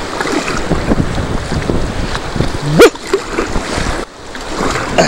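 Rough river water in rapids splashing and slapping around a wooden dugout canoe, with wind buffeting the microphone. About three seconds in comes one sudden, very loud hit, the loudest moment.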